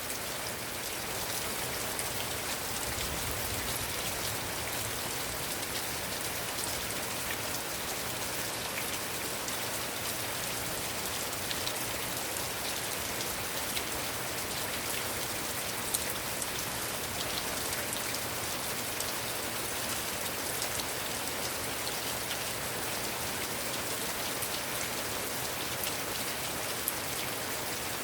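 Heavy rain falling steadily, an even hiss with a few sharper drop ticks, the clearest about halfway through and near the end.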